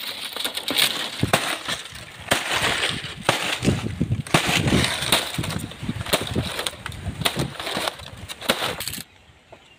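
Dry fan-palm fronds being torn and snapped: a dense run of crackles and sharp cracks that stops abruptly about nine seconds in.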